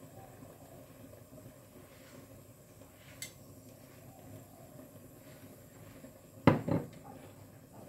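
A sauce bottle set down on the kitchen counter: two quick knocks close together about six and a half seconds in, the loudest sound, after a faint click near three seconds. A low steady hum runs underneath.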